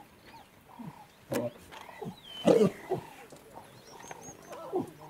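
Lions giving short calls, several in a few seconds, each falling in pitch, the loudest about two and a half seconds in.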